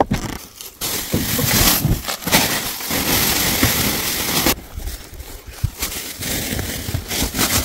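Sawdust pouring out of a woven plastic sack, a steady rushing hiss that starts about a second in and is loudest for the next few seconds, then goes on more quietly.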